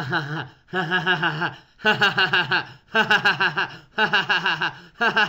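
Laughter in loud, repeated bursts, about one a second.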